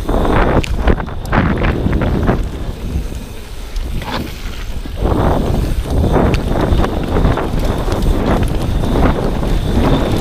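Mountain bike ridden down a dirt forest trail: wind buffeting the microphone over rumbling tyre and trail noise, surging and easing with speed, dropping briefly a few seconds in, with a short squeak near the middle.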